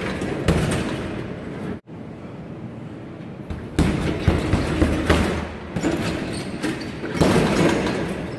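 Irregular thuds and slaps of a kickboxing workout, punches and kicks on a heavy punching bag and bare feet striking the floor, echoing in a large gym hall. The sound cuts out briefly about two seconds in.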